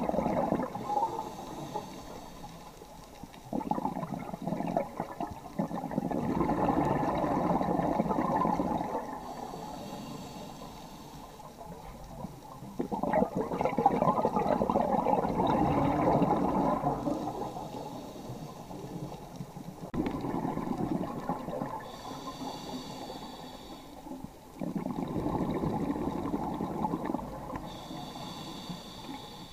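Scuba diver breathing through a regulator underwater: a hiss on each inhale, then a long rush of exhaust bubbles on each exhale, about five breaths in all.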